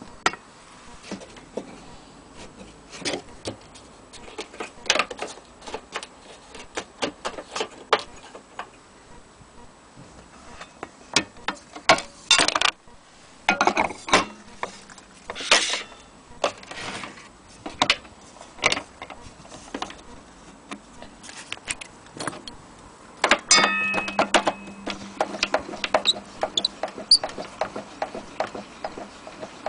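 Clicks, taps and metallic rattles of an HMV Model 102 portable gramophone's metal fittings being handled. About three-quarters of the way through, a steady low hum starts under a fast run of clicks as the winding crank is worked.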